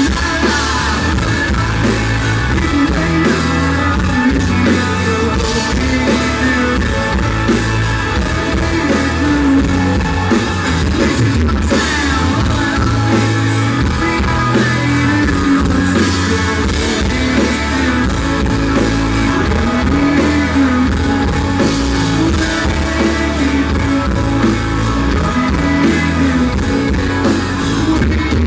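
A live country-rock band playing loudly: a drum kit, a bass line moving through notes, and electric guitar, recorded from the audience with poor, harsh sound.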